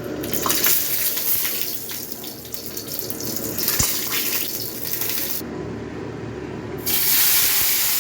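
Whole cumin seeds and bay leaves sizzling and crackling in hot oil in a kadai as the tempering for a curry. The sizzle turns suddenly louder about seven seconds in.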